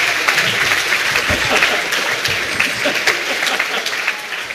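Audience applause: dense, rapid clapping from a crowd that gradually dies down.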